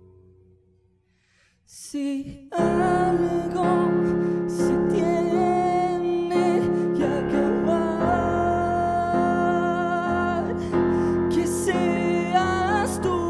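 Live band music: a held keyboard chord fades away to near silence, then about two and a half seconds in the keyboards come in with sustained chords and a voice sings over them.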